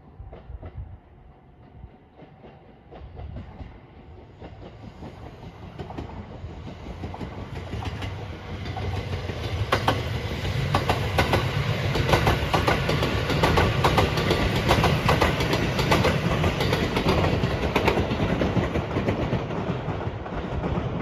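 Passenger train approaching and passing at speed, its wheels clacking over rail joints. It grows louder from a few seconds in and runs loud over the second half.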